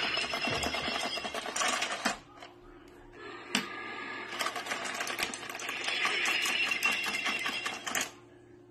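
Small geared motor of a motorized Halloween skull bowl whirring and clattering as it drives the skeleton hand. It runs in two bursts: the first stops about two seconds in, the second starts about halfway through and cuts off near the end.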